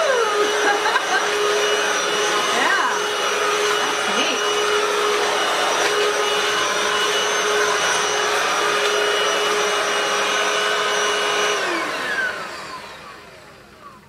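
DEIK 2-in-1 cordless stick vacuum running steadily on continuous mode, a motor whine over rushing air, as its floor head picks up dirt from a linoleum floor. Near the end it is switched off and the whine falls in pitch as the motor winds down.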